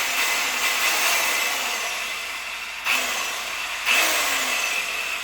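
Electric double cut sheet-metal saw running with a high whine, its motor surging three times (at the start, near 3 s and near 4 s) and slowing a little between surges as the trigger is pressed again.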